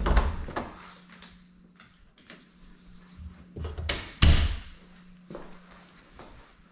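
A door being opened and shut, giving a loud bang at the start and another, louder bang about four seconds later, with lighter knocks and rattles between.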